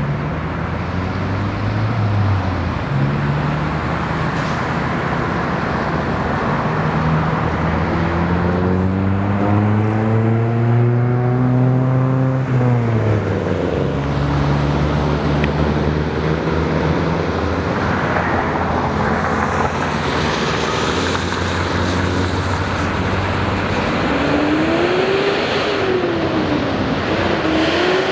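Motor vehicles passing on the road, their engines rising in pitch and then falling away, over a steady loud rushing noise.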